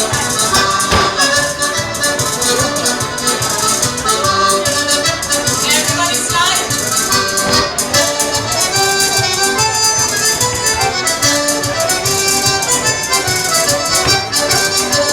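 Lively traditional dance music led by an accordion, with a steady beat.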